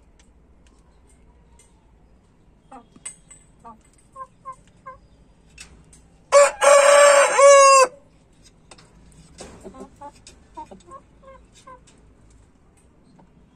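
A rooster crows once, loud and short, about a second and a half long, a little after the middle, the call sweeping up in pitch as it ends. Soft short clucks come before and after it.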